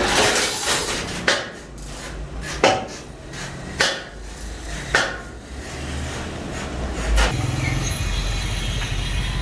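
Hammer blows on metal, about five sharp strikes roughly a second apart, each ringing briefly, over a steady low hum.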